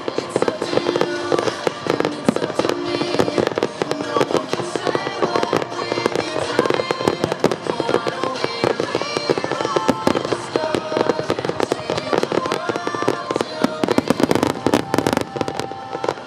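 Fireworks display: many aerial shells bursting in quick succession, a dense barrage of bangs and crackling that is heaviest toward the end, with music underneath.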